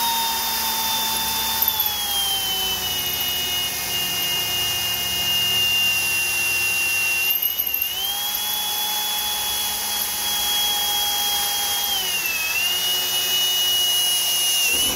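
Cordless drill running with a small bit, drilling a pilot hole through the steel body of a 60-series Land Cruiser. Its motor whine drops in pitch about two seconds in, rises again about eight seconds in, and drops once more near the end.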